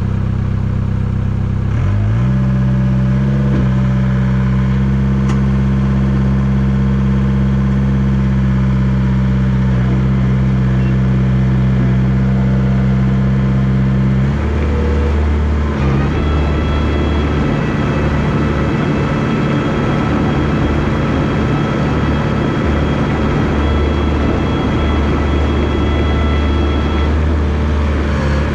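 Komatsu bulldozer's diesel engine running steadily. About two seconds in its note steps up. About fourteen seconds in it drops to a lower, rougher note, and a thin high whine joins it about two seconds later.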